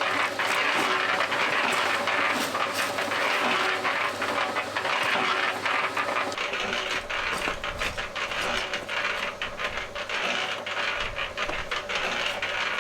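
Cement mixer turning a concrete batch: a continuous, hideous rattling and clattering of the mix in the drum, with a steady mechanical hum underneath.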